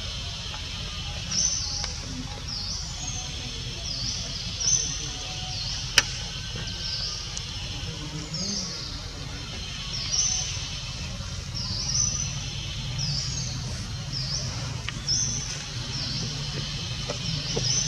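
Birds chirping over and over, short high calls repeating about once a second, with a single sharp click about six seconds in.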